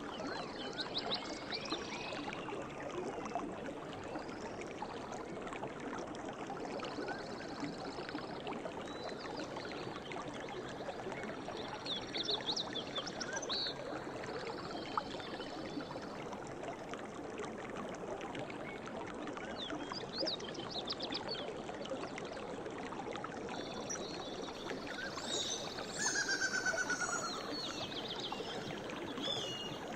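A stream running steadily over rocks, with songbirds chirping and trilling every few seconds. The birdsong is busiest near the end.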